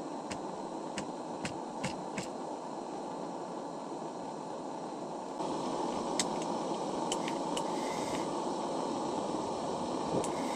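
Steady low rushing background noise with scattered small sharp clicks, like fingers working a small electric fishing reel; the background steps up a little about five seconds in.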